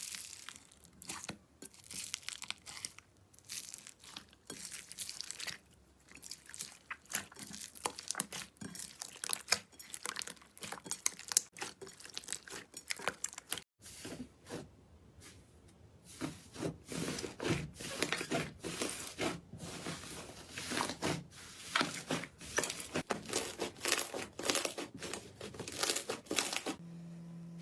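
Slime being squeezed and pulled by hand, giving dense sticky crackles and pops, with a brief break about halfway through.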